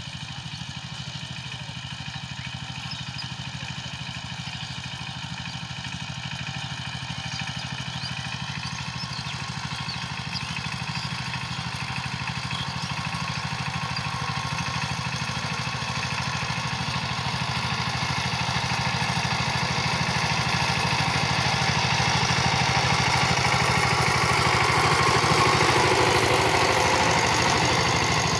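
Chang Tuo 12-horsepower two-wheel power tiller's single-cylinder diesel engine running steadily under load as its rotary tiller churns the soil, growing steadily louder as it drives closer.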